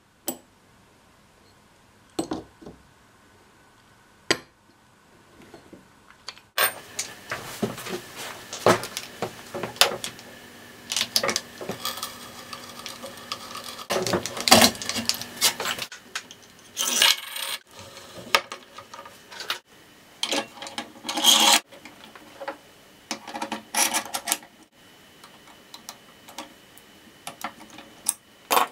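A few separate metal clinks as bearing, pulley and washer parts are handled on a wooden workbench. From about six seconds in, a busy run of scraping, grinding and knocking as a hand brace bores into a wooden table top and metal hardware is fitted beneath it.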